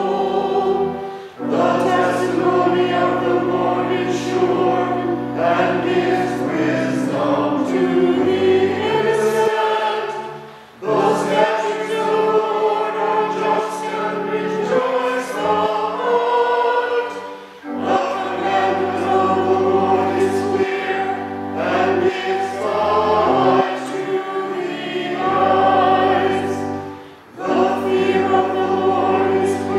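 A choir singing a slow sacred piece over sustained low accompanying notes, in long phrases with a short break between each.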